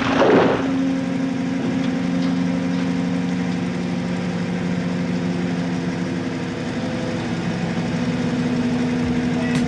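The engine of a floating bulldozer dredger running steadily, a constant hum with several fixed tones. A brief rush of noise sounds at the very start.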